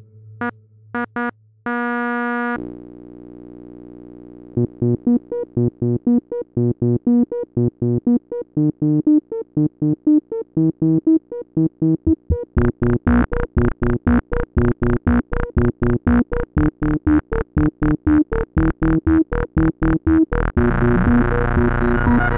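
Home-built Ruby polyphonic subtractive software synthesizer playing a demo. A few short notes and a held note give way, about four and a half seconds in, to a run of quick staccato notes. These turn much brighter about twelve seconds in, and a continuous dense sound takes over about twenty seconds in.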